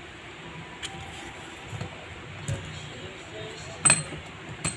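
An airsoft L96 rifle's bipod being fitted onto the rail under the stock: a few light knocks and clinks, then a sharp click about four seconds in and a softer one just after.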